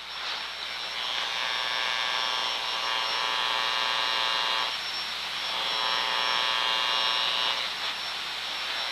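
Electrical discharge inside a switchgear enclosure, picked up through the door seal by an Ultraprobe 2000 ultrasound detector and heard through its heterodyne output. It is a steady electrical buzz with a mains-hum character, and it grows louder twice for a few seconds as the probe moves along the seal. The buzz is the sign of discharge (arcing, tracking or corona) inside the enclosure.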